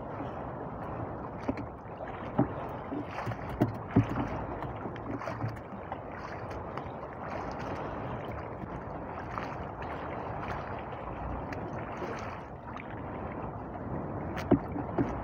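Water slapping and washing against the hull of a small wooden fishing boat drifting on a choppy sea, a steady rush. A few sharp knocks come between about one and a half and four seconds in, and twice more near the end.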